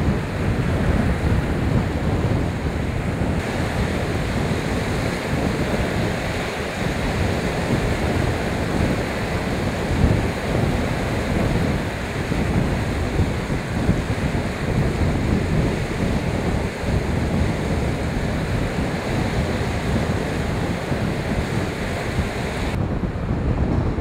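Storm surf breaking and washing over a pebble beach in a strong wind, with gusts buffeting the microphone in a heavy low rumble. Shortly before the end the hiss of the surf cuts off abruptly, leaving only the wind rumble.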